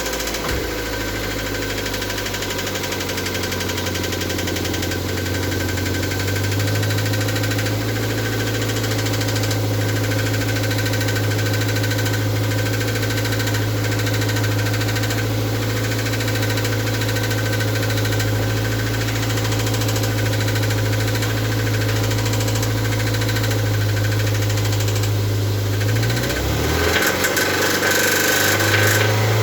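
Toyota MR2 Mk3's 1.8-litre four-cylinder engine idling steadily with a knock, which the owner presents as an engine knocking sound. The idle settles a little higher about a quarter of the way in and briefly dips and recovers near the end.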